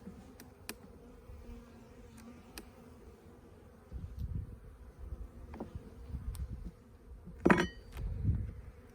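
Honey bees buzzing around an opened hive, a faint steady hum. Low handling rumbles come and go, and a sharp clack about three-quarters of the way through is the loudest sound.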